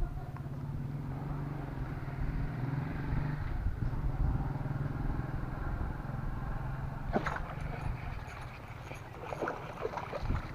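A small engine running steadily, fading away after about seven seconds. A few sharp clicks follow.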